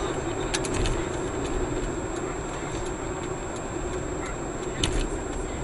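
Steady engine and road noise inside a moving car, with a thin high whine throughout. A few sharp clicks come about half a second in, and one more near the end.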